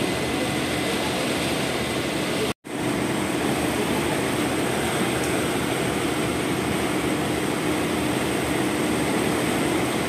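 Steady drone of the KM Wilis passenger ship's engines and machinery, with a faint steady hum through it; the sound cuts out completely for an instant about two and a half seconds in.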